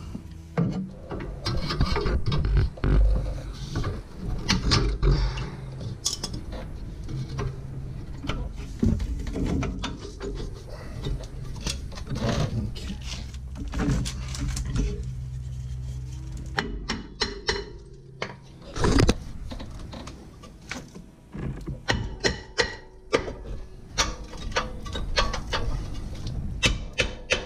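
Metal tools clicking and knocking against the rear brake parts of a 1998 Toyota Prado, then, near the end, a run of hammer blows on the rear brake rotor, about two a second.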